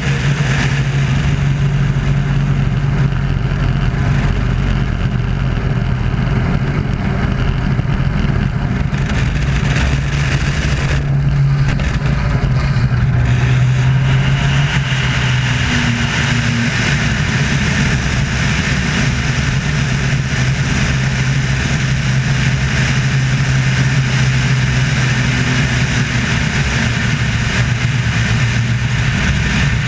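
Piston engine and propeller of a Wolf Pitts Pro aerobatic biplane running steadily at display power, heard from outside the aircraft with air rushing past. The rushing hiss thins briefly about eleven seconds in, then returns.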